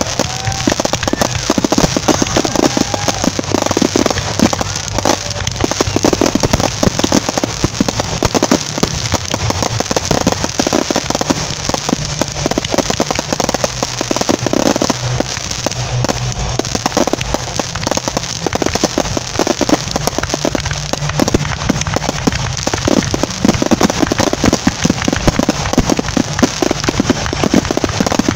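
Fireworks display in a dense, continuous barrage: aerial shells bursting one on top of another with crackling stars and a low rumble, as in the show's finale.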